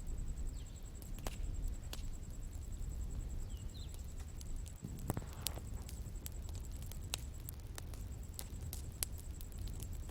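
Outdoor bonfire crackling: irregular sharp pops and snaps over a low steady rumble. A thin high tone holds steady throughout, and two faint short chirps come about half a second and nearly four seconds in.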